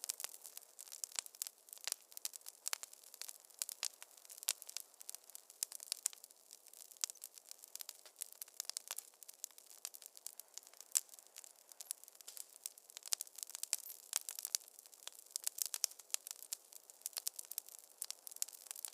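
Wood fire crackling in a fireplace: a dense, irregular stream of sharp pops and snaps over a faint hiss.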